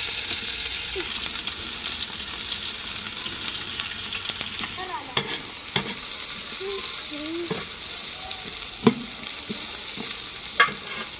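Sliced red onions sizzling in hot ghee in a large aluminium cooking pot: a steady frying hiss that slowly eases as the onions cook. A few sharp metal clicks of a ladle against the pot come in the second half as they are stirred.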